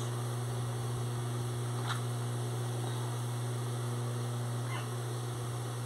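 Steady low electrical hum, with two faint rustles of fabric being handled, about two seconds in and near the five-second mark.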